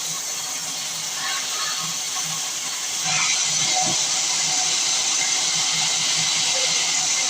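Sawmill saw cutting through wood: a steady high hiss that gets louder about three seconds in.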